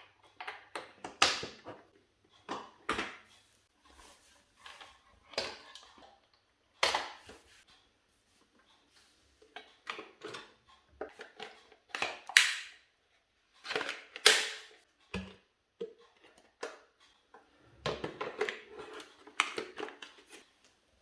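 Irregular sharp clicks, knocks and clatter of hard objects being handled, coming in uneven bursts with short quiet gaps between them.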